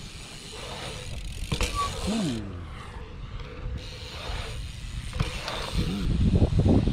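BMX bike rolling over a concrete skatepark surface, tyre noise with the freewheel hub ticking. The rolling noise grows louder from about six seconds in.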